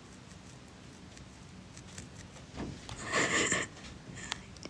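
A woman's soft, breathy laugh: a single unvoiced huff of breath about two and a half seconds in, lasting about a second, after a quiet stretch.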